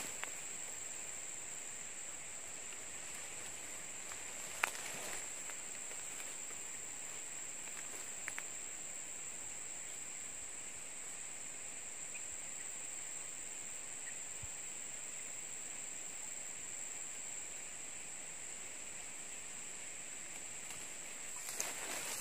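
Insects shrilling in one steady, high, even tone, with a single sharp click about four and a half seconds in.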